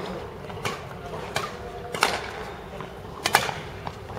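Badminton rackets striking a shuttlecock in a fast rally, giving sharp cracks roughly every second. The loudest is a quick double crack a little over three seconds in.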